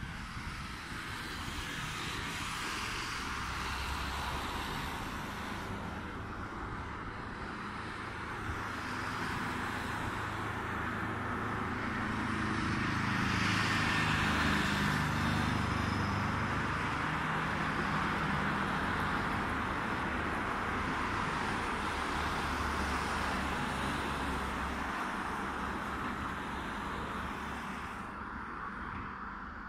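A distant aircraft passing over: a steady engine noise that swells slowly to its loudest about halfway through and then fades.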